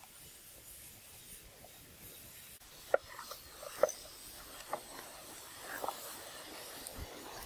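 Green bamboo tubes being turned by hand on a campfire: a few short, hollow wooden knocks and scrapes as they roll against each other and the stones, over a faint hiss of the fire.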